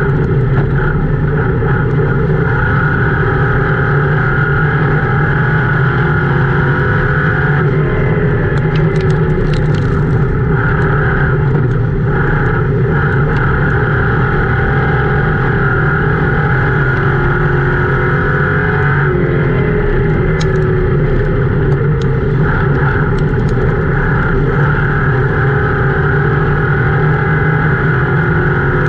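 Ford Crown Victoria race car's V8 engine running hard, heard from inside the cockpit: a loud, steady drone whose pitch dips and climbs again twice, about a quarter and about two-thirds of the way through.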